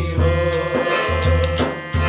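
A devotional Urdu naat sung with harmonium accompaniment and a steady, deep beat on a daf frame drum; the voice and drum ease off briefly near the end.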